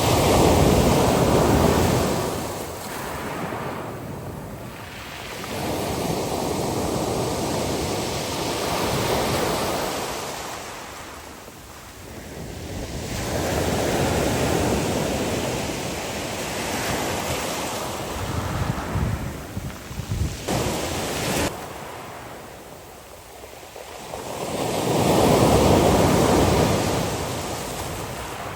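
Sea waves breaking and washing up the shore, swelling and fading every few seconds. Wind buffets the microphone in gusts, most clearly in the middle.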